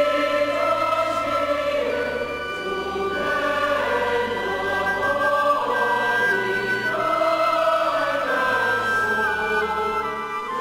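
Church congregation singing a hymn in harmony: long held notes over a steady low accompaniment.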